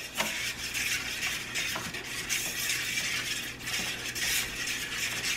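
A fork whisking raw eggs on a plate: a steady quick scraping and swishing of the fork through the egg, with faint taps against the plate.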